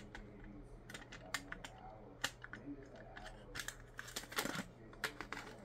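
Hard plastic parts of a Megazord toy clicking and knocking as they are handled and pushed together: a scattering of short, sharp clicks, with a small cluster about four seconds in.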